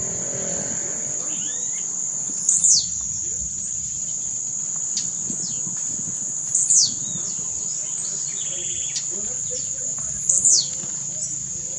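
Blue-black grassquit giving its short, buzzy, downslurred display call three times, about four seconds apart, over a steady high-pitched insect drone.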